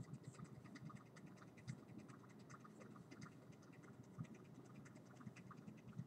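Near silence with faint, irregular scratching and light ticking, the handling noise of a handheld EMF/RF meter being held and moved against the body.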